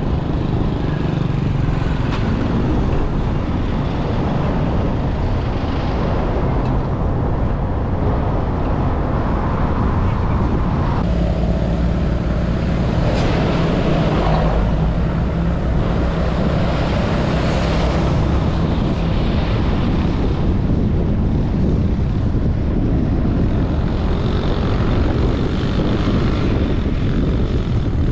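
Road noise from a moving vehicle: steady engine and tyre rumble with other traffic on the road, the noise changing for several seconds about halfway through as a box truck passes close alongside.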